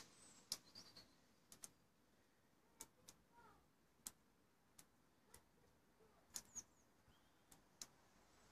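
Near silence, broken by about a dozen faint, sharp clicks at irregular intervals and a few faint high chirps.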